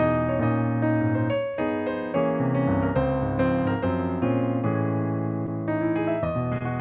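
Yamaha P-515 digital piano played continuously, a stream of chords and melody notes over a moving bass line.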